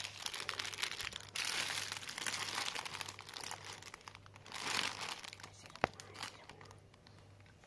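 Clear plastic wrapping on packets crinkling as the packets are handled and set into a plate, in several bursts that thin out over the last couple of seconds, with one sharp click about six seconds in.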